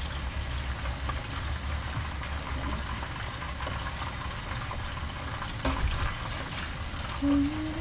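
Chicken pieces and potato chunks deep-frying in hot oil, a steady sizzle and bubbling, with metal tongs clicking against the pan now and then. A short low tone sounds near the end.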